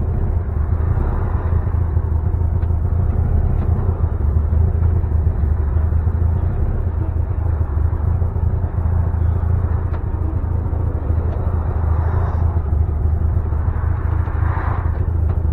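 Custom 1960 Volkswagen Beetle with a high-performance engine and exhaust, driving, heard from inside the cabin: a steady low engine drone with road noise.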